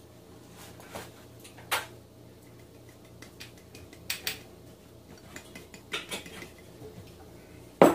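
Kitchenware being handled and set down on a counter: a few scattered clinks and knocks of dishes and utensils, the loudest one right at the end.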